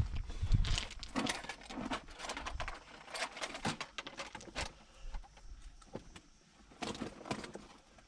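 Irregular knocks, clicks and rustling of fishing tackle and bags being handled, with gravel crunching underfoot.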